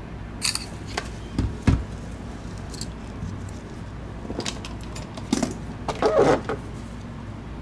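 Plastic parts of a Logitech MX Anywhere 3 mouse being handled on a silicone work mat: a series of light knocks and clicks, the sharpest just before two seconds in, and a longer rattling cluster around six seconds in, over a steady low hum.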